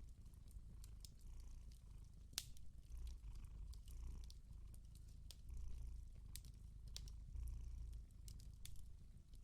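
A cat purring steadily, low and faint, swelling and easing every couple of seconds, with scattered sharp crackles and pops from a wood fire.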